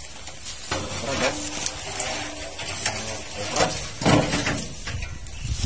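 Grass and dry plant litter rustling and scraping as a long stick is pushed and dragged through it, in a run of irregular crackles and swishes.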